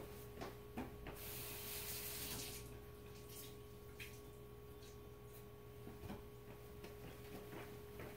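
Water running briefly from a tap, about a second and a half long, while a paper towel is dampened, with a few faint knocks and handling sounds around it.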